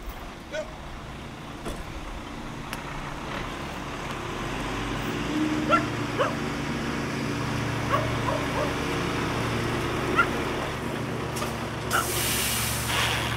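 Heavy flatbed crane truck's diesel engine running as the truck moves slowly, getting louder about a third of the way in, with a dog barking now and then. Near the end comes a hiss of air from the truck's air brakes being set.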